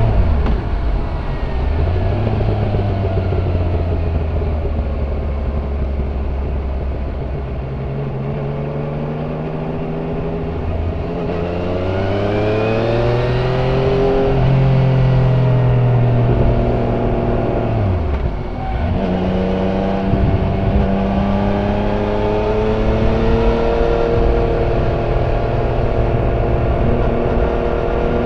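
Yamaha Niken GT's 847 cc inline three-cylinder engine through its stock exhaust, heard on board while riding. The engine note falls as the throttle closes just after the start and holds steady for a few seconds. It rises under acceleration about twelve seconds in, drops off again around sixteen to eighteen seconds in, then picks back up.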